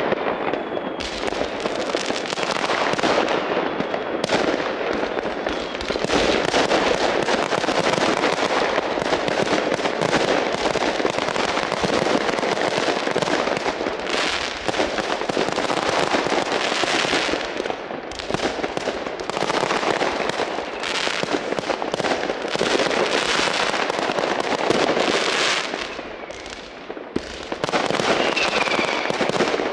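Fireworks: many firecrackers and rockets going off at once, a dense, continuous crackle of bangs with no let-up. A short falling whistle comes near the end.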